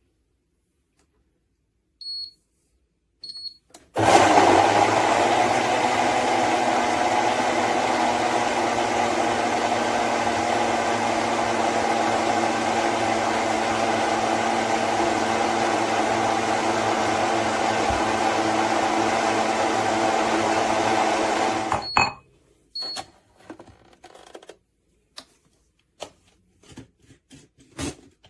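Electric jug blender running at one steady speed for about 18 seconds: it starts about four seconds in and switches off suddenly with a click. A few light clicks and clatters come before it starts and after it stops.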